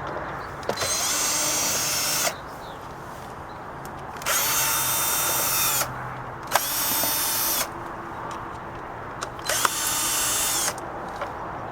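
Power drill with a Phillips bit spinning in four short bursts, backing out the small screws of a cover panel.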